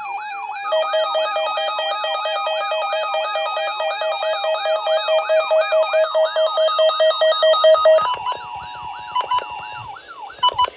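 Several electronic alert alarms sounding over each other: a siren-like tone sweeping up about three times a second together with rapid pulsing beeps about four a second, from emergency-alert receivers sounding for an Amber Alert. The beeps stop about eight seconds in, the sweep a couple of seconds later, and a few short beeps follow near the end.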